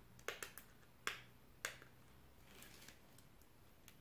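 Fingertips picking and scratching at the edge of a roll of self-adhesive sandpaper to lift its end: about five faint, sharp clicks in the first two seconds, then little more.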